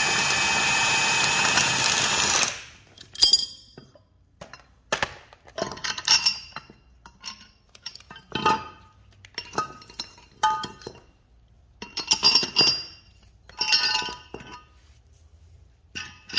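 Milwaukee high-torque cordless impact wrench spinning steadily for about two and a half seconds, backing off the bolt of a wheel-bearing press tool. It is followed by a string of separate metallic clinks and rattles as the steel press-kit pieces and parts are handled.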